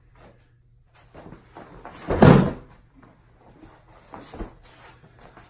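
A grown judo partner thrown onto a judo mat, landing with one loud thud and slap of a breakfall about two seconds in. Bare feet scuff on the mat before it, and a smaller thump comes near the end as he gets up.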